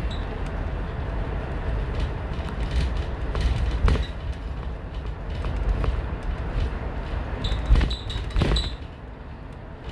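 Cabin noise from inside a moving road vehicle: a steady low rumble from the road, with rattles and creaks. There are sharp knocks about four seconds in and again near the end, along with a few short squeaks, and then the rumble eases off.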